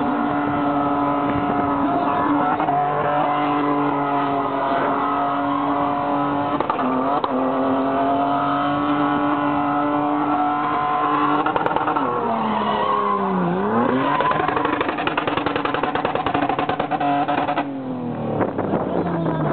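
SUV drifting on tarmac, its engine held at high revs with the tyres squealing. The pitch dips and climbs back about two-thirds of the way through. Near the end the sound changes suddenly and the pitch falls away.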